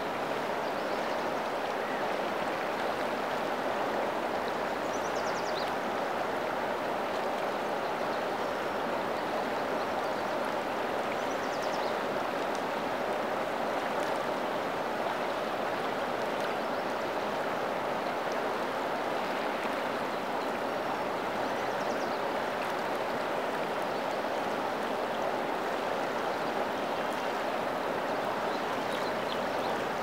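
Swift, high-running river flowing: a steady, even rush of water.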